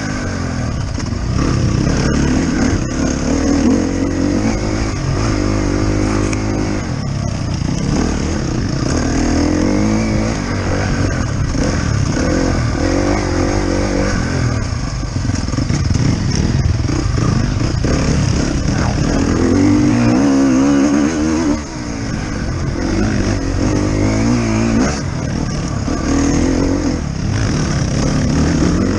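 Enduro motorcycle engine heard from on board, revving up and down continuously as the bike is ridden through the race course.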